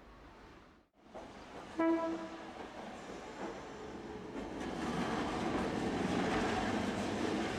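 A diesel train sounds one short horn blast about two seconds in, then approaches and passes close by, the rumble and clatter of its wheels on the rails building to a steady loud run near the end.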